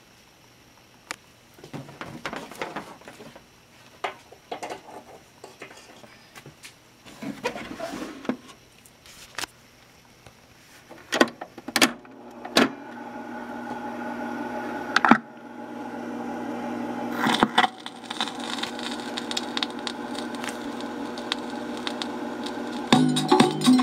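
Fisher-Price toy record player: knocks and clicks of its plastic case being handled, then sharp clicks as the speed switch is slid. The turntable motor then runs with a steady hum, and just before the end the record starts playing music through its small speaker.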